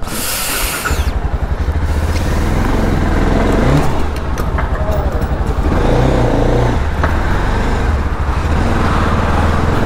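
Motorcycle engine being started with the electric starter: a short burst of noise, then the engine catches about a second in and runs with a rapid, even pulse as the bike moves off.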